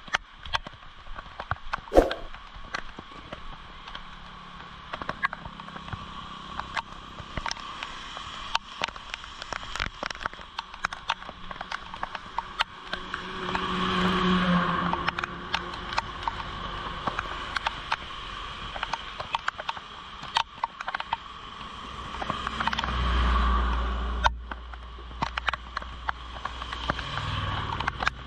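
Steady rain and wet-road traffic with many scattered clicks. About halfway through, a lorry swishes past on the wet road, and a low rumble builds near the end.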